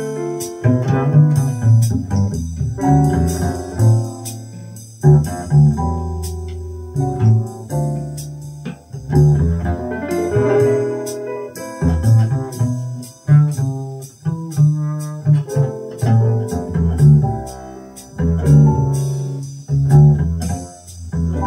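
Jazz recording with a prominent plucked double bass and plucked notes above it, played back through a 6A3 tube amplifier and Sansui SP-100 loudspeakers.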